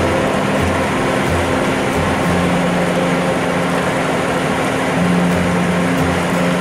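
Background music with a steady beat, over the steady road and cab noise of a truck driving on a wet highway.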